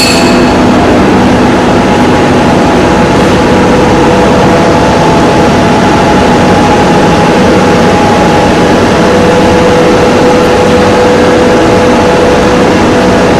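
Machine-shop machinery running: a loud, steady mechanical hum with a couple of held notes that grow stronger about five seconds in. A short metallic clink right at the start.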